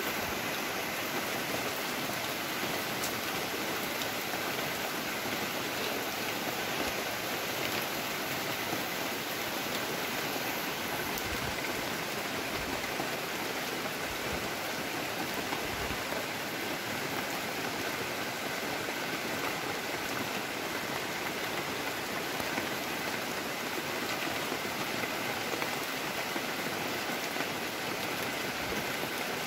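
Steady rain falling on the broad leaves of banana plants: an even, unbroken hiss of drops.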